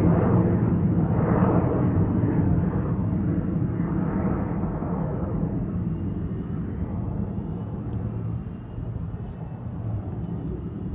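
Embraer E175 jet on takeoff, its twin General Electric CF34-8E turbofans at full power: a deep, steady roar that slowly fades as the jet climbs away, with a faint high whine in the last few seconds.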